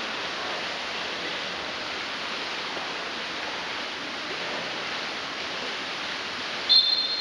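Steady wash of splashing from water polo players swimming in an indoor pool. Near the end a referee's whistle gives a single shrill blast about a second long, the loudest sound.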